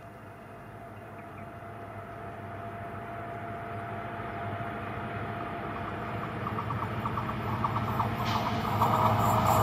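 Twin WDP4 diesel-electric locomotives, EMD two-stroke diesels, approaching. Their engine rumble grows steadily louder, and a rapid rattle of wheels on rail comes in over the last couple of seconds.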